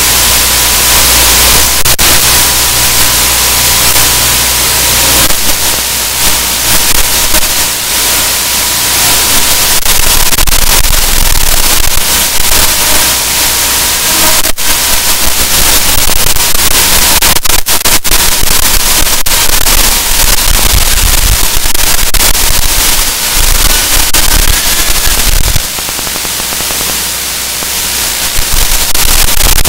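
Loud, steady static hiss with a faint steady tone underneath and a few sharp crackling clicks, recorded by an Aomway DVR/video receiver from an analogue FPV link. The uploader reports this as a huge issue with the DVR.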